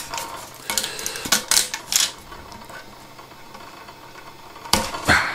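Clicks and scrapes of a hard 3D-printed plastic part being twisted and pried against blue painter's tape on a printer bed, with a louder scraping crackle near the end. The part is stuck down very firmly.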